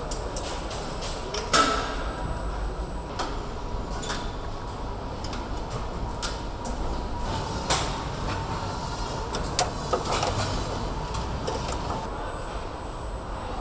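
Car assembly-line noise: a steady hum of machinery with scattered metallic clicks and clanks, the loudest about a second and a half in. A faint high whine sounds at the start and again near the end.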